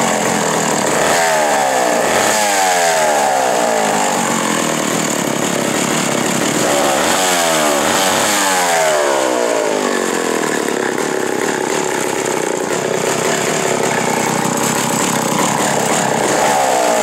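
1958 McCulloch Super 55 gear-drive chainsaw's 80 cc two-stroke engine running, throttle blipped about five times, the pitch falling back each time as the revs drop toward idle.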